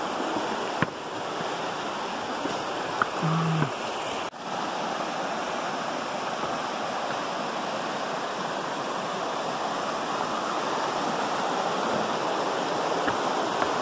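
Rushing river water, a steady, even noise.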